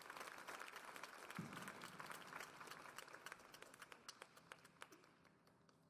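Audience clapping after a point, dying away over a few seconds.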